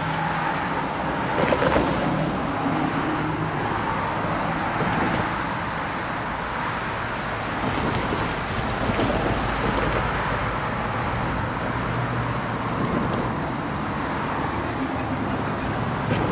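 Road traffic: cars passing on the street beside the rail line, a steady wash of engine and tyre noise that swells and fades as vehicles go by.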